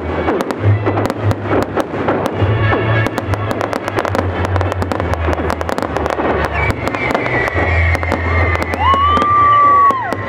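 Fireworks display: a dense run of bangs and crackling bursts, over music with a heavy low bass. About nine seconds in a high, steady whistling tone holds for about a second.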